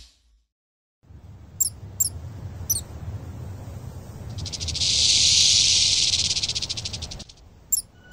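Cartoon desert ambience: a low wind-like rumble with a few short high chirps, then a rattlesnake's rattle buzzing for about two and a half seconds, swelling and cutting off suddenly.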